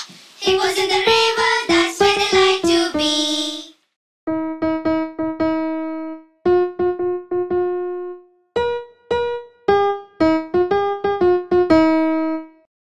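Children's song music on an electric keyboard. A fuller phrase ends about four seconds in, then the keyboard plays a simple tune on its own in short phrases with brief pauses.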